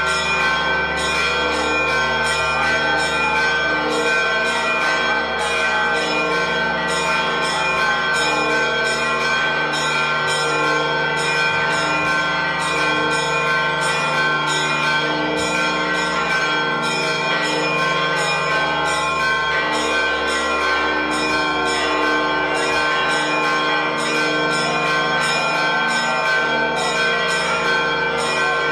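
Church bells pealing without pause, many bells struck in quick, overlapping strokes, their tones ringing on together: the festive ringing that greets the Holy Fire.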